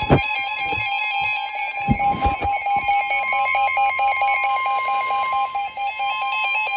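NOAA Weather Radio warning alarm, a steady 1050 Hz tone that signals a warning message is about to follow. It sounds over a weather-radio receiver's rapid, evenly repeating electronic alert beeping. A few dull thumps come in the first couple of seconds.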